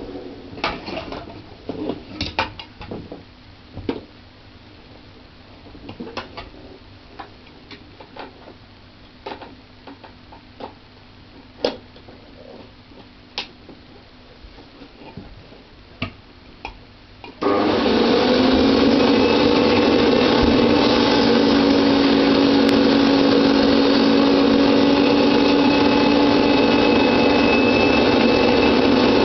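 A 1970s Hoover Junior Deluxe upright vacuum cleaner with a dirty-fan motor: scattered clicks and knocks for the first two-thirds, then the vacuum switches on suddenly and runs with a loud, steady hum and whine.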